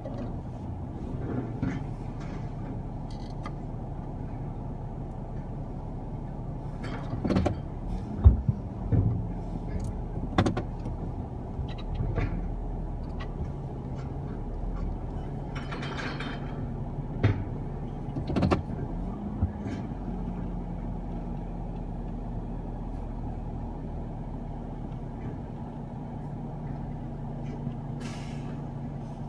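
Garbage truck's engine running steadily, with a string of sharp metal clanks and bangs and two short air hisses.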